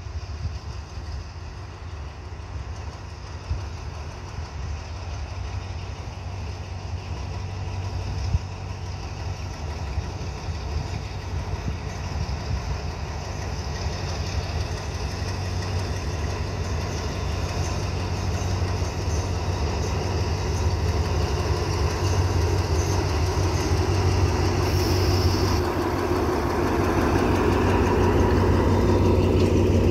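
Alsthom diesel-electric locomotive running light, its diesel engine's low steady rumble growing gradually louder as it approaches and draws alongside.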